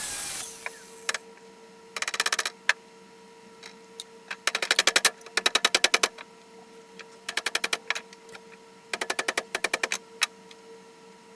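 Air-over-hydraulic press pump running in four short bursts of rapid clattering, about ten strokes a second, over a faint steady hum.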